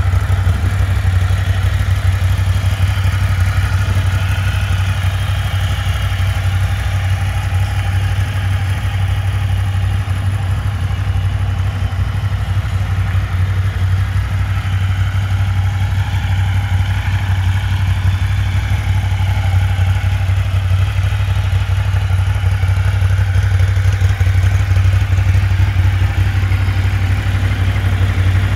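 2019 Ducati Monster 1200S's 1198 cc L-twin engine idling steadily in neutral, with no revving.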